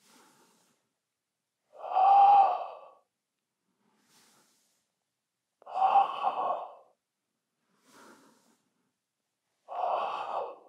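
A man breathing in time with goblet squat repetitions: a loud, forceful exhale about every four seconds as he drives up out of each rep, three in all, with faint inhales between them on the way down.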